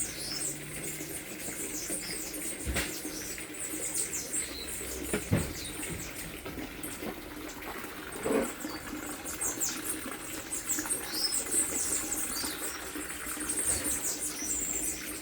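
Many small birds chirping and twittering at once in a dense, high-pitched chorus, with a couple of short knocks partway through.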